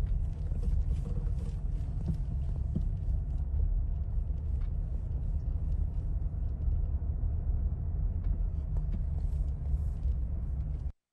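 Steady low rumble of an outdoor phone recording, wind buffeting the microphone, with a few faint ticks; it cuts off suddenly at the end.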